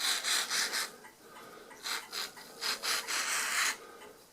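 Rasping, scraping rubs in three or so bursts of up to a second: the gummed-up detent levers of an Addo Multo Model 3 mechanical calculator being worked back and forth on their shaft with gloved fingers.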